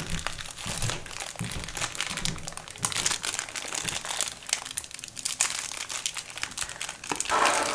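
Plastic packaging crinkling and crackling as it is torn open and unwrapped by hand, in a dense irregular run of small crackles.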